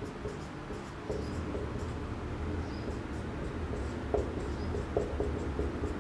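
Marker pen writing capital letters on a whiteboard: short scratchy, faintly squeaky strokes and taps, over a low steady hum.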